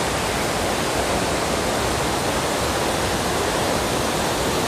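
Waterfall's steady rushing water, loud and even.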